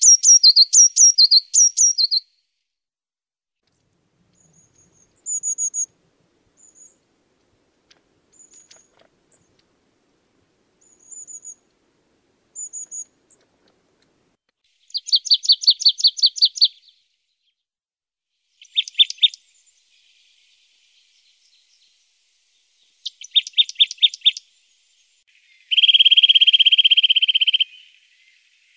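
Small songbirds calling and singing in short separate phrases with pauses between them. A quick run of repeated notes opens it, thin high single notes follow, a fast trill comes about halfway, and a long, very rapid even trill comes near the end.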